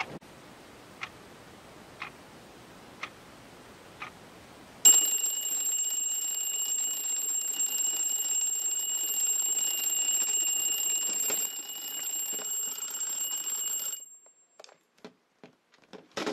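Twin-bell alarm clock ticking about once a second, then about five seconds in its alarm starts ringing loud and continuous. The ringing runs for about nine seconds and cuts off suddenly, with a few light clicks after.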